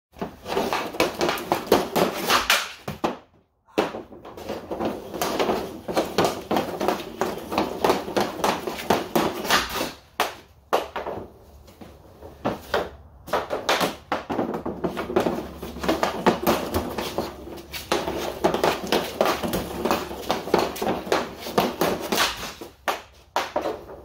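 Hockey stick and pucks clacking on a garage floor in quick, uneven taps and knocks from stickhandling and shooting. The sound cuts out briefly twice.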